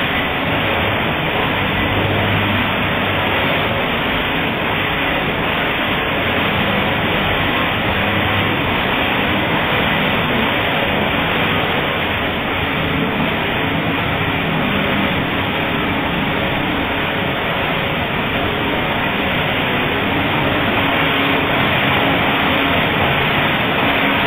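Stoll computerised flat-bed knitting machines running: a steady, dense mechanical noise with no breaks.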